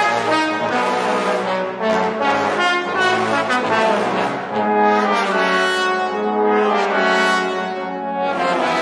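A trombone ensemble of eight tenor and bass trombones playing full chords together, the harmony shifting every second or so without a break.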